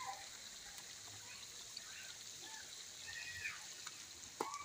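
Faint wet stirring of an oily spice marinade with a metal spoon in a plastic tub, with a light tap near the end.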